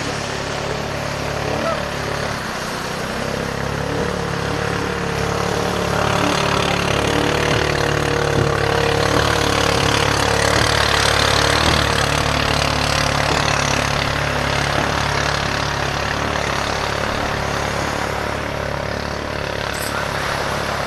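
Racing bangka's engine running flat out as the boat speeds by close to shore. It grows louder as the boat passes about halfway through, then eases off as the boat heads away. Surf washes at the waterline throughout.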